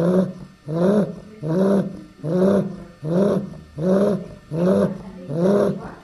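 Eight-week-old chow chow puppy snoring in its sleep: a regular, rasping pitched snore on each breath, about eight in a row, one every three-quarters of a second or so.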